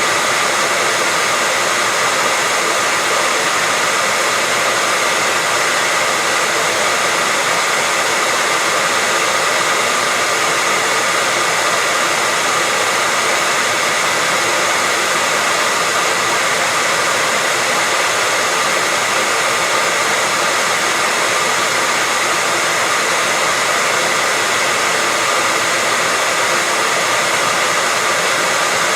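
Electric hair dryer running continuously at a steady speed: an even, unchanging rush of air with a faint steady whine from the motor.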